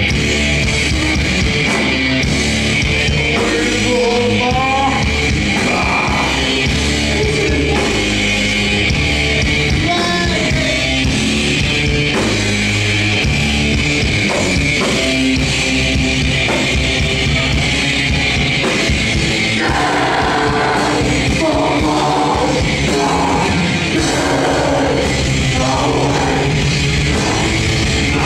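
A loud rock band playing live: distorted electric guitars, bass and a drum kit, with a vocalist singing over them that becomes more prominent about two-thirds of the way through.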